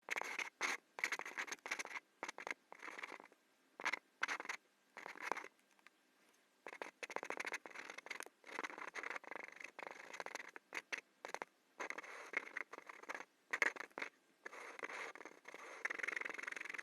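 Pen scratching across paper in stop-start strokes of varying length while sketching, with a longer pause about six seconds in.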